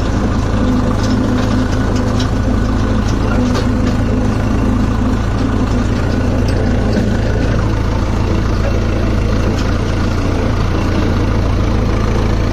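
Hindustan 80 tractor's diesel engine running steadily, heard from the driver's seat as the tractor drives. A few light rattles come through in the first few seconds.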